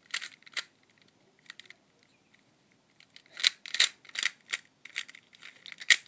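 Plastic Rubik's cube layers turned quickly by hand, each turn a short clack. Two turns come at the start, then a pause of about two seconds, then a fast run of turns from about three and a half seconds in.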